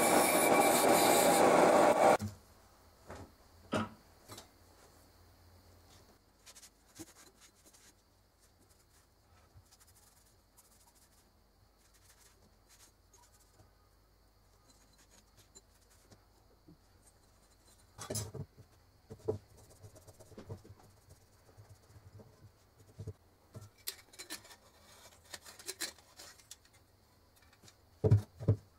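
Drill-press buffing wheel running against a metal lamp part with a loud, rough rubbing noise that cuts off about two seconds in. Then light, scattered knocks and taps as glass lamp parts are handled.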